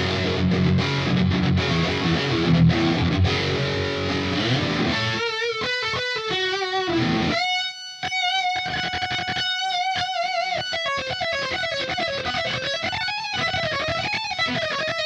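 Squier Affinity Stratocaster electric guitar played through a Line 6 POD HD500. It plays dense, low chord riffing for about five seconds, then switches to a single-note lead line with wide vibrato, holding one long note about eight seconds in.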